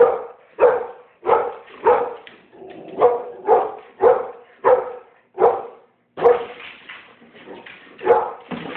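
Pit bull barking over and over, about two barks a second, then a short pause and one more bark near the end: alarm barking at balloons it is frightened of.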